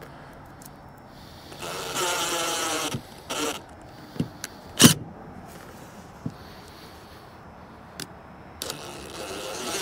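Cordless drill/driver whirring in short runs as it drives a screw through a sticker into a plywood trailer wall: a run of about a second and a half, a brief one, then another near the end, with a few sharp clicks in between.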